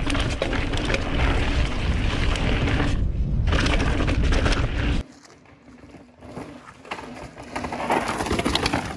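A mountain bike, a Merida Big 9 hardtail, ridden over a dirt trail, with wind rumbling on the microphone over tyre and trail noise. The noise drops suddenly about five seconds in, then builds again with scattered rattles and clicks toward the end.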